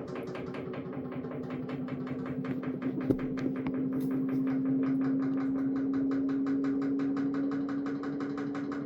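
Samsung AddWash front-loading washing machine turning its drum at low speed. Its motor gives a steady hum that climbs slightly in pitch, under a fast, even knocking of several beats a second.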